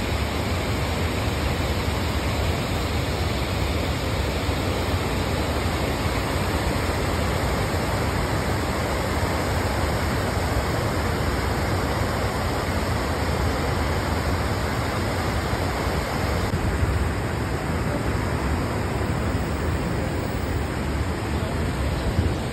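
River water pouring over a stepped weir: a steady, even rush of falling water. The higher hiss softens a little about two-thirds of the way through.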